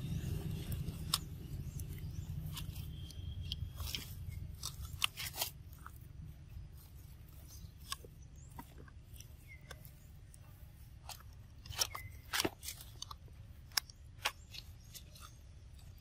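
Macaques chewing and biting into soft mango close to the microphone: irregular wet smacks and clicks, thickest about four to five seconds in and again around twelve seconds in. A low rumble underneath fades away over the first few seconds.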